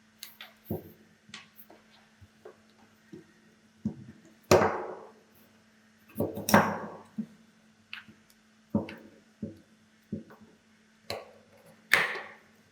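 Irregular clicks and knocks of parts and tools being handled, with a few louder clattering knocks, over a faint steady hum.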